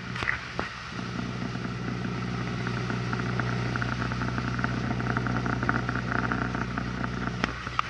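Sailing catamaran's engine running steadily with a low hum, over the rush of water and wind.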